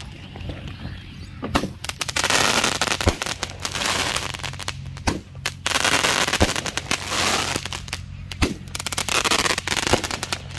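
A 27-shot 500 g firework cake firing: sharp bangs as shots go off one after another every second or so, over a dense hiss and crackle of the effects.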